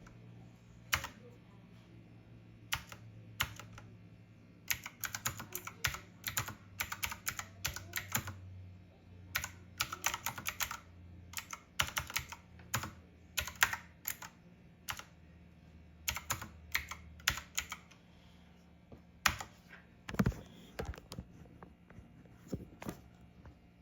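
Typing on a typewriter-style keyboard with round keycaps: irregular runs of key clicks broken by short pauses.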